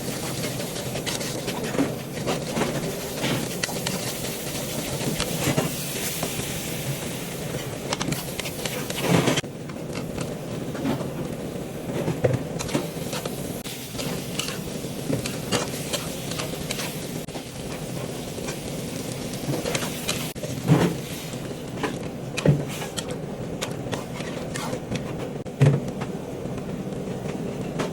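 Food sizzling in a cooking pot, a steady hiss that thins about nine seconds in, with scattered knocks and clinks of a utensil against the pot.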